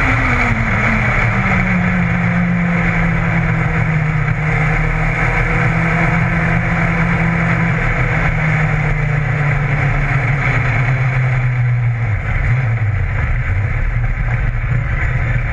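Modlite dirt-track race car's engine heard from inside the cockpit. The revs fall over the first second or so, then it runs steadily at part throttle. The note eases lower and wavers briefly about twelve seconds in before steadying again.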